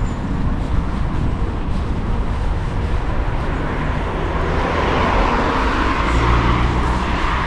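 Street traffic: road vehicles running past, with one growing louder and passing in the second half.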